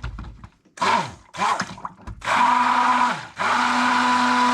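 Electric stick blender pulsing in soap batter to mix in pink mica colourant: two short bursts, then two longer steady runs, each winding down with a falling pitch as it is switched off.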